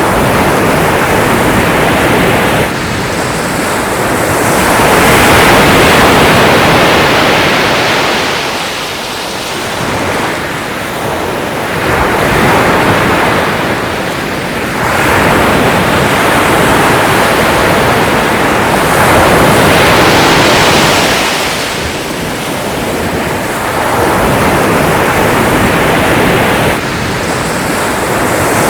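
Ocean waves breaking and washing in, surging and easing in slow swells every four to six seconds.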